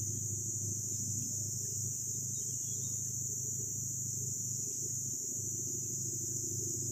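Steady high-pitched chorus of insects in the trees, with a low steady rumble underneath.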